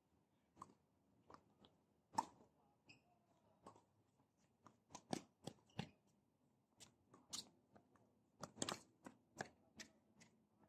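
Tennis balls being struck by rackets and bouncing on a hard court during a rally: a string of sharp, irregular pops and knocks, the loudest about two seconds in.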